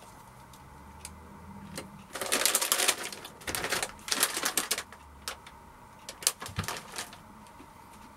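Crinkly plastic snack packet rustling and crackling in the hands as it is picked up and turned over, in several bursts from about two seconds in to about five seconds, with a few lighter crackles and clicks a little later.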